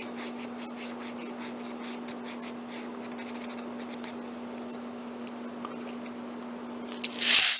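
Quiet handling of a small plastic mini cannon and its metal bolt on a countertop: faint scratching and light clicks over a steady low hum. Near the end comes a short, loud hissing rush.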